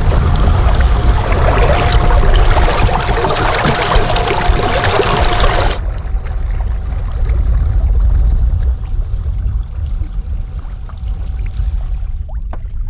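Small inflatable boat on open water: water rushing and splashing with a heavy low wind rumble on the microphone and a thin steady whine underneath. The rushing hiss cuts off abruptly about six seconds in, while the rumble and whine carry on until near the end.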